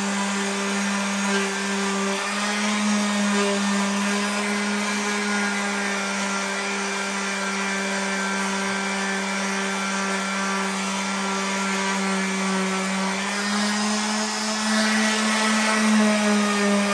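Power sander running steadily with a 220-grit sanding disc on a scratched car wheel rim, taking out the lines left by coarser paper: a steady motor hum over a rubbing hiss, its pitch rising slightly about 13 seconds in.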